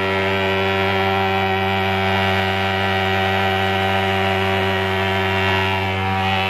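Swingfog pulse-jet thermal fogger running with a steady low buzz as it pumps out insecticide fog.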